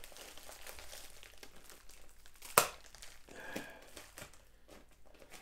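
Plastic parcel bag crinkling as it is handled and cut open with a knife, with one sharp click about two and a half seconds in.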